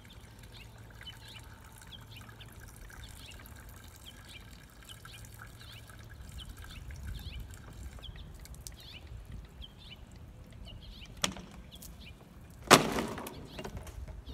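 Birds chirping in the background. Near the end, a single sharp click, then the loudest sound: one hard smack as a large blade chops through a water-filled plastic bottle, followed by a short rush of splashing water.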